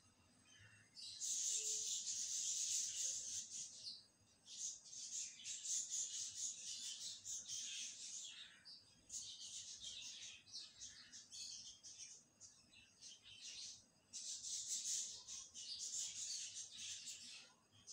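Sliced onions sizzling in hot oil in a wok. The sizzle starts about a second in and dips briefly a few times.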